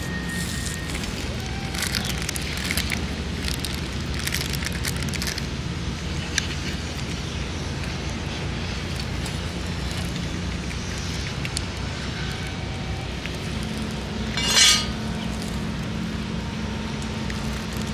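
A cat eating dry kibble from a stainless steel bowl: crunching, with small clinks of kibble and teeth against the metal, over a steady low rumble. Late on, one brief, louder sound stands out.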